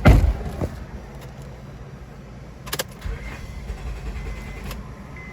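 A loud low thump, then a 2005 Honda Accord's engine running with a steady low rumble and a couple of sharp clicks. This is a start attempt right after refuelling, on a car with a P0496 high-purge-flow EVAP fault that makes it hard to start after a fill-up.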